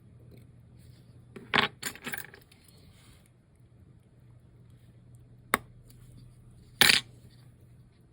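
Light metallic clinks of small tools and watch parts set down on a watchmaker's bench: a quick cluster of clicks about a second and a half in, a single sharp click past five seconds, and a louder clink near seven seconds.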